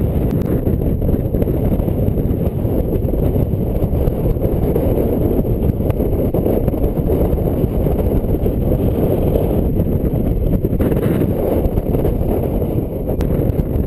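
Wind from the airflow of a paraglider in flight buffeting the camera's microphone: a steady, low rush of noise.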